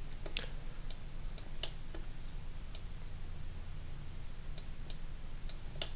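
Irregular light clicks from a computer mouse and keyboard at the desk, over a steady low hum from the microphone.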